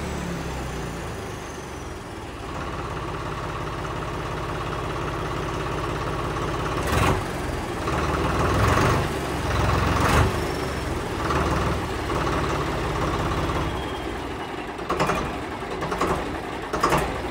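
Little Boy mini tractor's engine idling steadily, with a few sharp clicks or knocks about seven and ten seconds in and several more near the end.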